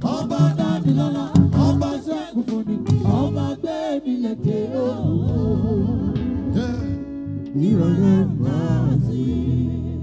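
Live gospel band music: a lead voice singing over a steady bass line and percussion.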